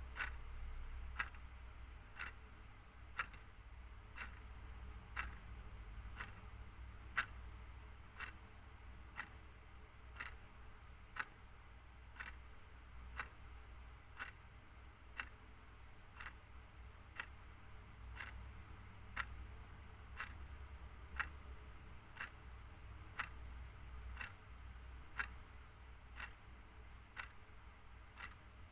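A clock ticking steadily, even ticks with every other one louder, over a faint low hum.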